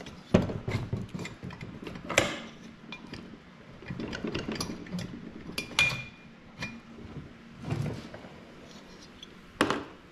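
Irregular knocks, clunks and scrapes of a removed Kawasaki 340 snowmobile engine cylinder being handled and turned over on a workbench, with about five sharper knocks spread through it.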